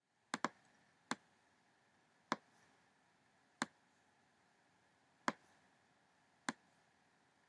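Computer mouse button clicking: a quick double click, then five single clicks one to two seconds apart, over a faint steady hiss.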